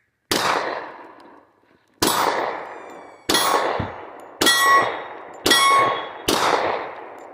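Glock 20 Gen 4 pistol in 10mm Auto firing six loud shots at an uneven pace, each followed by a long ringing echo that fades over about a second.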